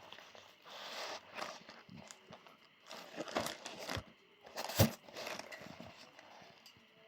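A crossbody bag and its packaging being handled: irregular rustling with scattered small clicks and knocks. One sharp knock or click, the loudest sound, comes a little before five seconds in.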